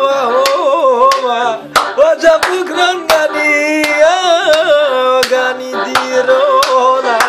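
Tallava music: a man singing a wavering, ornamented melody into a handheld microphone over a sustained accompaniment, with sharp claps or beats a few times a second.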